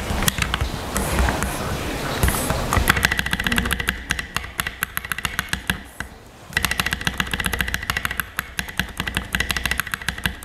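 A black SA-profile spacebar on a mechanical keyboard pressed over and over: a few scattered taps at first, then fast runs of clacks, broken by a short pause about halfway.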